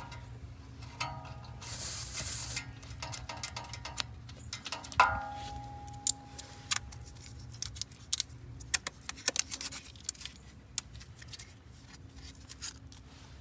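Short hiss of air escaping from a bus tire's valve stem as a screw-on TPMS sensor comes off, then a ringing ping and a run of light clicks and taps as the small sensor is handled and worked at with a small tool to change its battery. A steady low hum runs underneath.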